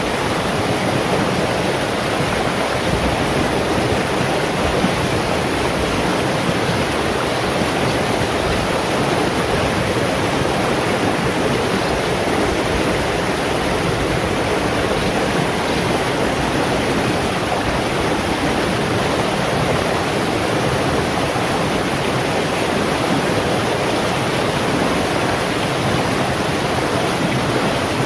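Shallow rocky stream rushing and splashing over stones, a steady unbroken rush of water.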